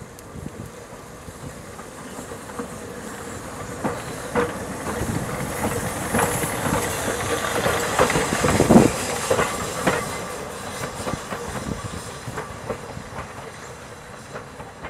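Narrow-gauge Fairlie-type steam locomotive moving slowly past at close range, its wheels clicking over rail joints and pointwork, with a steam hiss. The sound grows, is loudest as it passes about eight to nine seconds in, then fades as it moves away.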